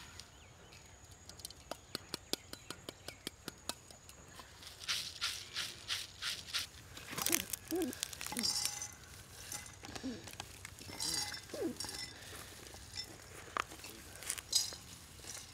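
Dry sunflower seeds rattling and pattering as they are stirred in a bamboo basket and tipped into terracotta bowls, with clinks of seed against clay. About two seconds in comes a quick run of light clicks, followed by louder, denser rattling.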